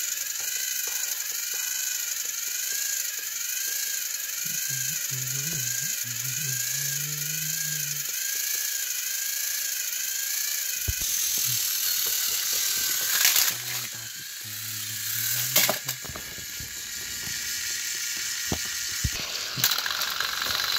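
Battery-powered toy train engines' small motors whirring with gears grinding as the two engines push against each other on plastic track, the whine wavering up and down about twice a second. A few sharp clicks come in the second half.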